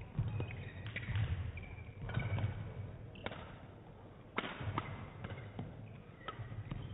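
Badminton rally in a sports hall: several sharp pops of rackets striking the shuttlecock, court shoes squeaking on the court mat, and thudding footsteps.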